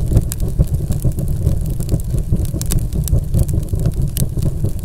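Logo-intro sound effect: a loud, low, rapidly pulsing rumble with dense crackling throughout.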